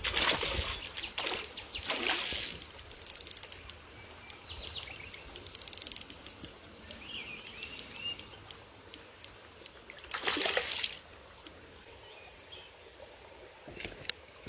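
Spinning reel being wound in, giving a run of irregular mechanical clicks, with loud water splashes at the start, about two seconds in and again about ten seconds in as a hooked brown trout is played to hand.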